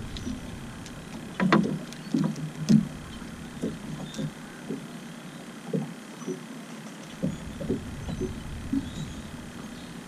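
Water lapping against the hull of a small boat: irregular soft slaps, about one or two a second, with two louder knocks in the first few seconds.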